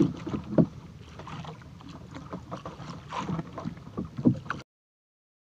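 Wind on the microphone and water noise aboard a small fishing boat at sea, with a few sharp knocks. The sound cuts off abruptly to silence about four and a half seconds in.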